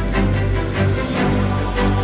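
Instrumental theme-style music with a beat over sustained low bass notes.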